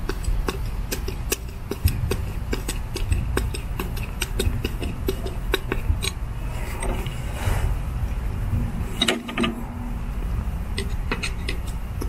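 Screws being turned into the bonnet of a Hunter PGV sprinkler valve: a run of small, irregular clicks a few times a second over a low steady rumble, with a soft rush about halfway through.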